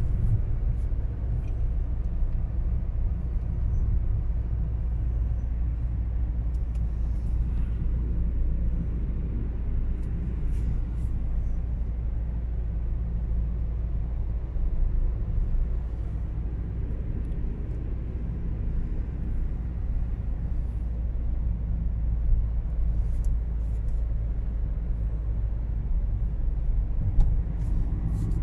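Car cabin noise while driving at a steady speed on an open road: a steady low rumble of engine and tyres, with a few faint clicks and a small knock near the end.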